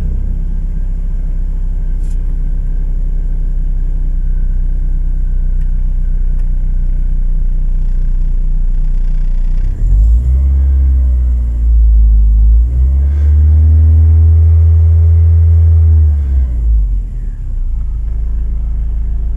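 VW Passat B3's 2E four-cylinder petrol engine idling with a steady low rumble, then revved up about ten seconds in and held higher for a few seconds before dropping back to idle. The rough idle shakes the car like a diesel, a vibration the owner puts down to a worn right engine mount, and it goes away at higher revs.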